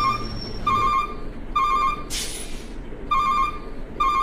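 Electronic beeping: a short warbling beep repeated about once a second, five times. About two seconds in there is a brief hiss.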